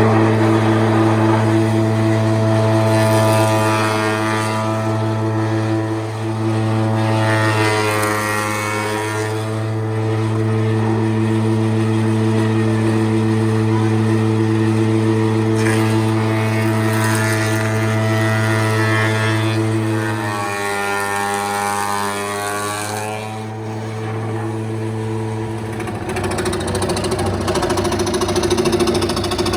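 A woodworking power tool's motor running steadily with a hum and a whine that changes pitch now and then, shifting about 20 seconds in and again about 26 seconds in.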